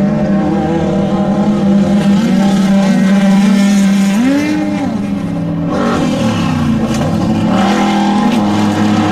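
Off-road desert race vehicle engines running loud and steady. One revs briefly about four seconds in, and about six seconds in the engine pitch drops and then climbs again.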